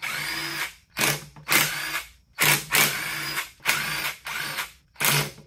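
Cordless drill with a 14 mm socket spinning already-broken-free bolts out of a Sterling 10.5 differential carrier case. It runs in a series of short trigger bursts, each under a second, with the motor's whine rising at the start of each.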